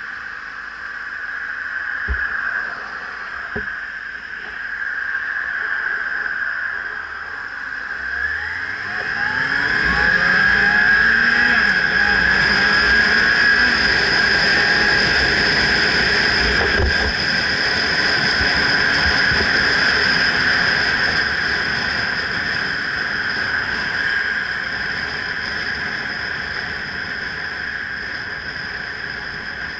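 Motorcycle engine pulling away and rising in pitch through the gears about a third of the way in, then cruising, with a steady rush of wind on the helmet-mounted microphone.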